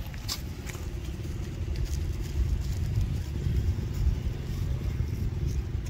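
Low, steady rumble of a motor vehicle engine running, growing slightly louder. A few faint crackles of dry leaves come in the first second.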